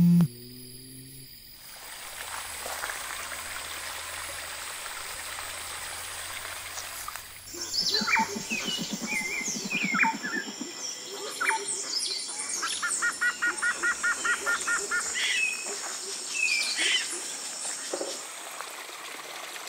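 Forest ambience: a steady high insect drone, with assorted birds chirping and calling from about seven seconds in, including a fast repeated trill near the middle. A brief pitched tone cuts off at the very start.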